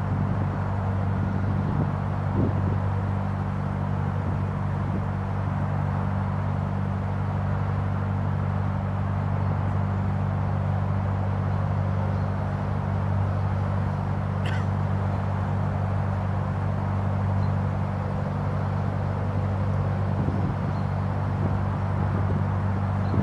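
Narrowboat's diesel engine running steadily at low revs, an even drone. A single brief high chirp comes about two-thirds of the way through.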